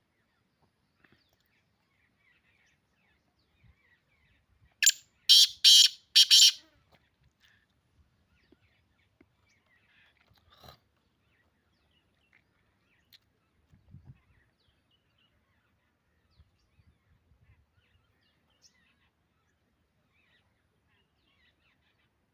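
Black francolin calling once: a loud, harsh phrase of four grating notes in quick succession about five seconds in, with only faint scattered sounds for the rest.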